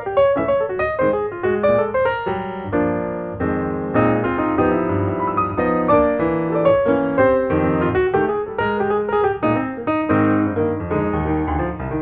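Background piano music: a flowing melody of quick notes over held chords.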